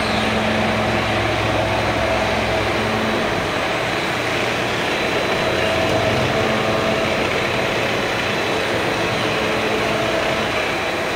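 Steady din of CNC machines running, including a vertical machining center's spindle milling a part in a vise under coolant spray. An even, unbroken machine noise with a couple of held tones.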